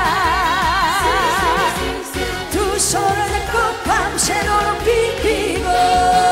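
A woman singing a Korean trot song live into a microphone over an upbeat backing track, holding a note with wide vibrato in the first second and a half before moving on through the melody; a steady held tone comes in near the end.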